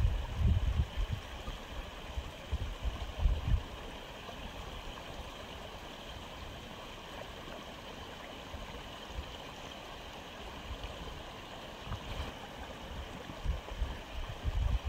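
Aquarium water flow, likely the filter, making a steady trickling, gurgling sound. Low, irregular thumps come in over the first few seconds and again near the end.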